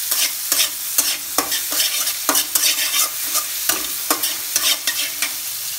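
Food sizzling in hot oil in a steel wok while being stir-fried, the utensil scraping and knocking against the pan about two to three times a second.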